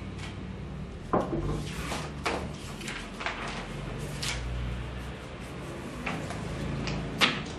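A glass set down on a tabletop with a knock, then magazines handled and leafed through. There are a few sharp knocks and paper rustles over a low steady hum.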